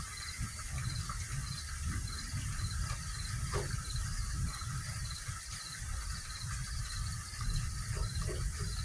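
Insects chirping outdoors at night, one high chirp pulsing evenly several times a second, over a light hiss of rain and a steady low rumble on the phone's microphone.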